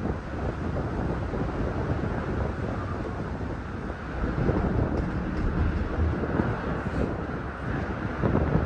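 Disney Skyliner gondola cabin in motion along its cable: a steady low noise of air and cabin movement, with wind buffeting the microphone.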